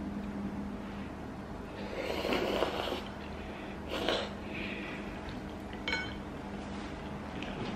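A person slurping thukpa noodles and soup from a bowl, with two airy slurps: a longer one about two seconds in and a shorter one about four seconds in.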